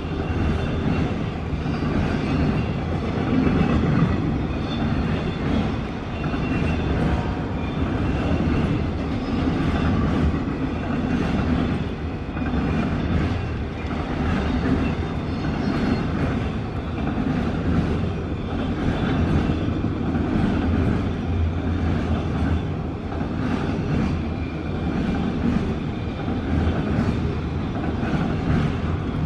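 Enclosed autorack freight cars rolling past on steel wheels: a steady low rumble with frequent clicks of the wheels over the rail joints.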